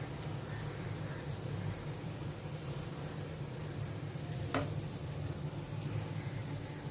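Prawns sizzling as they fry on a tawa, a steady hiss over a low hum, with one short sharp knock about two thirds of the way through.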